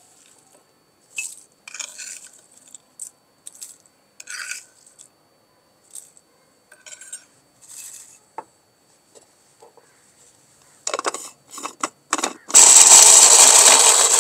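Metal spoon clinking and scraping against a plate and a small glass jar as whole roasted spices are spooned in, then a few sharp clicks as the jar is set on an electric grinder. Near the end the grinder starts, loud and steady, grinding the whole spices into garam masala.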